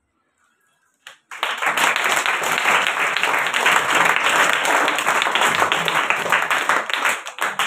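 Group of people applauding, many hands clapping fast and densely; it starts suddenly about a second in, after a short silence.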